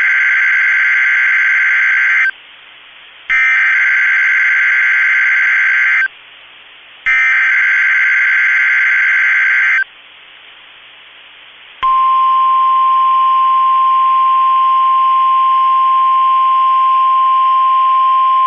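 NOAA Weather Radio Emergency Alert System activation: three bursts of the SAME digital header, each a buzzy data screech just under three seconds long with about a second's gap between them. About twelve seconds in comes the single-pitch 1050 Hz warning alarm tone, held steady. Together they announce a severe thunderstorm watch.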